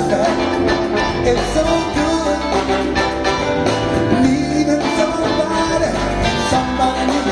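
A live band playing with a man singing lead vocals into a handheld microphone, amplified through the stage PA.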